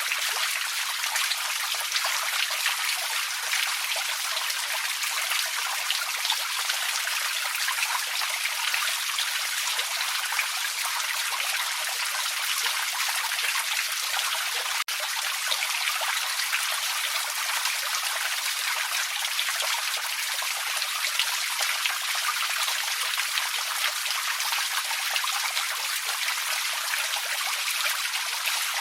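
A small forest creek's water trickling and running steadily, with a momentary dip about halfway through.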